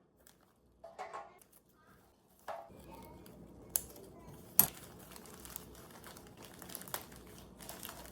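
Quiet household handling sounds: a few light clicks and taps amid soft rustling, the sharpest tap about halfway through.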